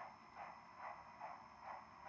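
Faint, evenly spaced steam chuffs from the sound decoder of an On3 model C-19 steam locomotive moving slowly, about five chuffs in two seconds.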